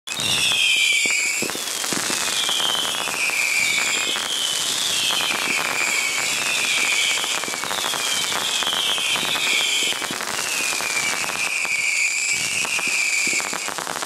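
Whistling fireworks: many overlapping shrill whistles, each sliding down in pitch, over steady crackling. Two copies of the recording are layered, one slowed down, so the whistles come at two pitches, spread wide across the stereo field.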